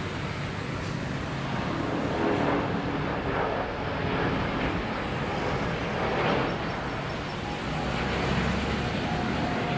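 Rolls-Royce Trent XWB jet engines of a departing Airbus A350 at climb thrust, a steady rumble heard from the ground that swells and eases a few times.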